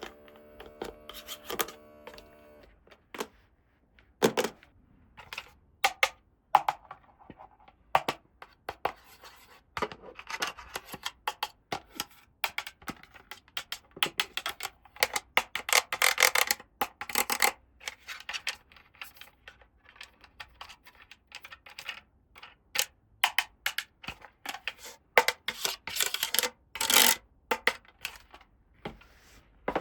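Small plastic toy pieces being handled and set down: irregular clicks, taps and light rustles, busiest around the middle and again near the end. A steady chord of several tones plays at the start and stops about two and a half seconds in.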